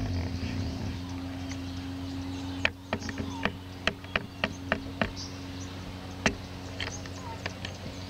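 Outdoor pond-side ambience: scattered short bird chirps and sharp clicks over a steady low hum, the clicks coming thicker about a third of the way in.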